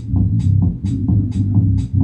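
Music with a steady beat: deep bass notes under a crisp high tick that comes about twice a second.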